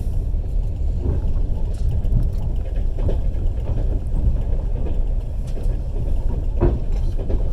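Passenger train carriage running along the track, a steady low rumble of wheels on rails with a few faint knocks.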